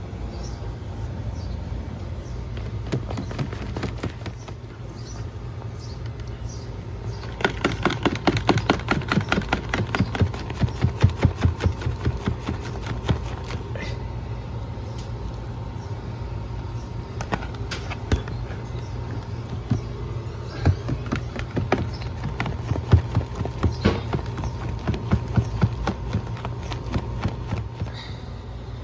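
Greasy mini-split air filters being worked up and down in a tub of hot cleaning solution: quick knocking and clattering in two long spells, over a steady low hum.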